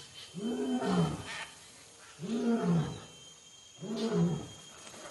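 Slot machine win sound effect: a big cat roaring three times, each call about a second long, rising and then falling in pitch. It plays in a loop to mark a winning line of leopard symbols.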